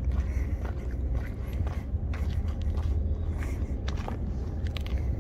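Footsteps and scuffs on a concrete breakwater, as scattered sharp clicks, over a steady low rumble.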